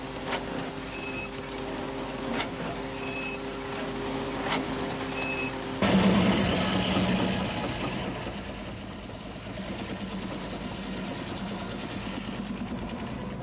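Machinery running with a steady hum and a short high beep about once a second. About six seconds in it changes abruptly to louder, rougher engine noise.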